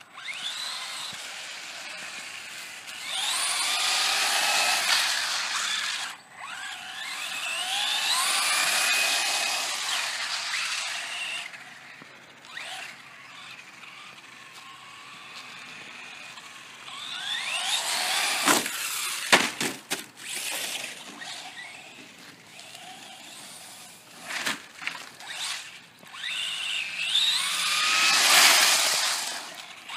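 Traxxas Slash VXL 4x4 RC truck's brushless electric motor whining, rising and falling in pitch in several bursts as the truck speeds up and slows down. A few sharp knocks come about two-thirds of the way through.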